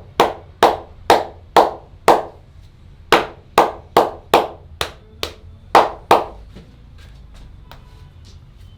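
Hand-percussion massage strokes: about thirteen sharp slapping claps of the masseur's hands, roughly two a second with a break of about a second partway through, stopping after about six seconds.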